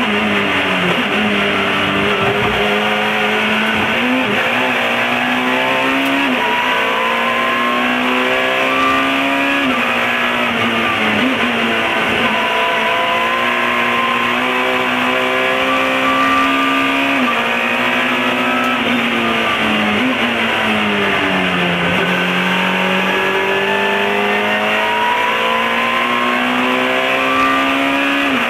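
Alfa Romeo 156 S2000 touring car's 2.0-litre four-cylinder racing engine heard from inside the cockpit at full race pace, the revs climbing through each gear and dropping sharply at each upshift. Around twenty seconds in the revs fall step by step as the car brakes and downshifts, then climb steadily again as it accelerates out.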